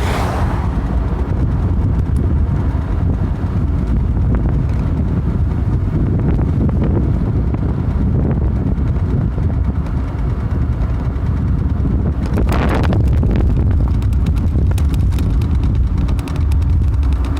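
Wind buffeting the microphone over a steady low road rumble while riding a bike along a road. A brief louder rushing noise comes about twelve and a half seconds in.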